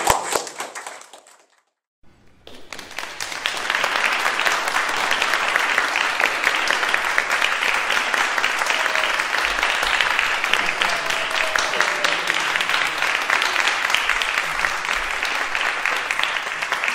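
Audience applauding. A few claps die away at the start, then after a brief silence steady applause swells in, runs on and fades out at the end.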